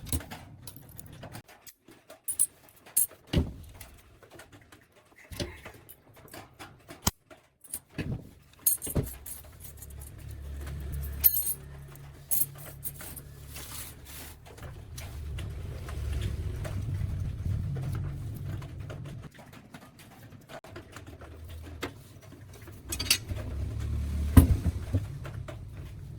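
Workshop handling sounds: a run of sharp clinks and knocks, like metal parts and tools being picked up and set down. From about nine seconds in, a low rumble runs under them.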